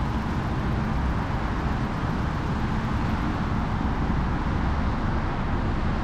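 Audi A3 idling at a standstill, a steady low engine rumble with outdoor hiss.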